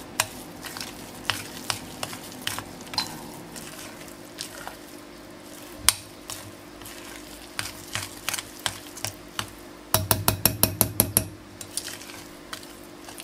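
Metal fork stirring and mashing crumbly cookie dough in a glass bowl, clinking against the glass at irregular intervals. About ten seconds in there is a fast run of clinks, about nine a second.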